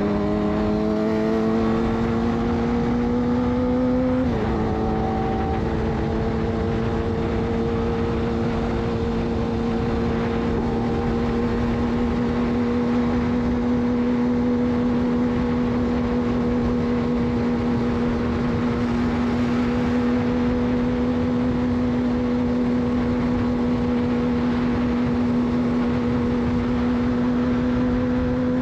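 Suzuki GSX-R600 inline-four through a de-catted Yoshimura exhaust, revs rising as it pulls through a gear, then an upshift about four seconds in, after which it holds steady revs. A steady rush of wind and road noise runs underneath.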